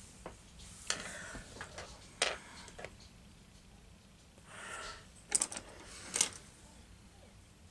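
Light handling of makeup tools and an eyeshadow palette: a few sharp clicks and taps, with a soft rustle about midway.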